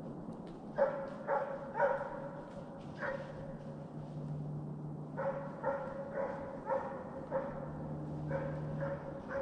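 A deer-hunting hound barking on a hot deer track: runs of short, ringing barks about two a second, with a pause of about two seconds near the middle.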